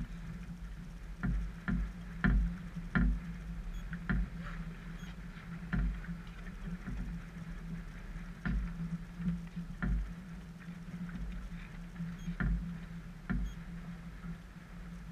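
Irregular knocks and taps on a stopped Super DN iceboat, about a dozen of them at uneven intervals, over a steady low hum.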